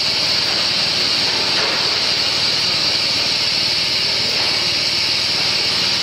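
1000mm air bubble film making machine running steadily, a constant machine noise with a high hiss over it.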